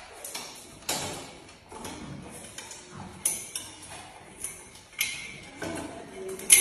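Metal baby gate rattling and clanking as a dog jumps up against it and a cat climbs it: a string of sharp, irregularly spaced knocks, some with a brief metallic ring, the loudest near the end.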